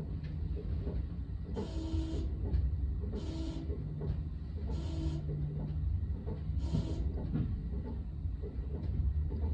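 Electric commuter train running with a steady low rumble, and the train's horn giving four short blasts about a second and a half apart, as it does repeatedly when running in snow.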